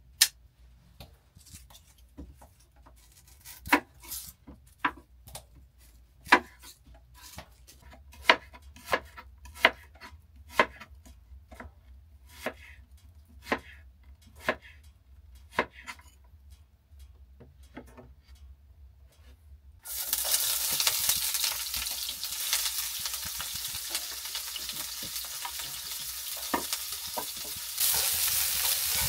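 Knife slicing an onion on a wooden cutting board: sharp knocks, roughly one or two a second. About twenty seconds in, a steady sizzle starts suddenly as the sliced onion fries in a pan on a wood stove and is stirred, and it grows a little louder near the end.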